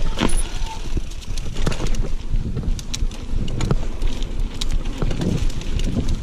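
Mountain bike rolling fast over rough dirt singletrack, its frame and drivetrain rattling with many sharp clicks and knocks over a steady rumble of tyres and wind on the microphone.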